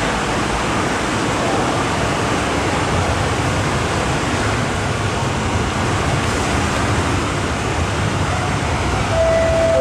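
Steady rushing platform noise with a low rumble building from about three seconds in, as an MTR M-Train approaches through the tunnel. Near the end a clear tone sounds, the first note of a falling chime.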